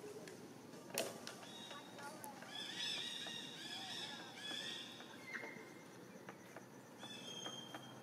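Macaque giving a run of high, squeaky calls, about three seconds in, after a sharp click about a second in.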